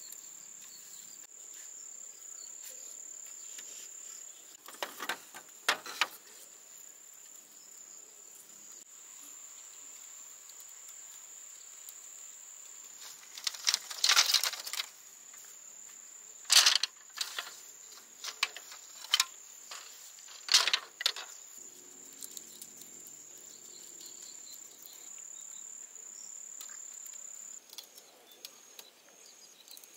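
A steady high-pitched insect drone, which stops near the end, under a dozen or so sharp knocks and cracks of bamboo poles and split slats being handled and fitted together. The knocks come in clusters, loudest toward the middle.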